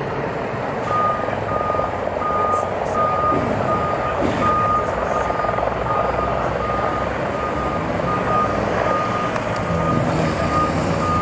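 A vehicle's reversing alarm beeping about twice a second, starting about a second in, over steady engine and street noise.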